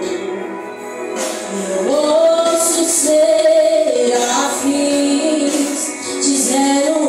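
Worship song: voices singing with musical backing, holding long notes, with a note sliding up into a sustained tone about two seconds in.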